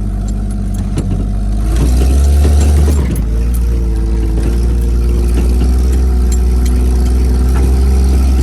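Jeep CJ7 engine running, revving up a little under two seconds in, then holding a steady, higher note.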